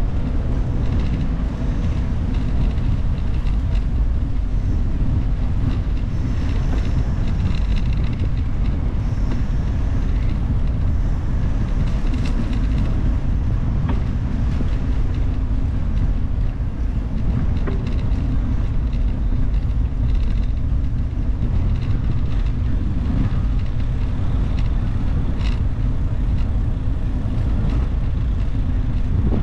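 Steady low wind rumble buffeting the microphone of a camera riding along on a moving bicycle.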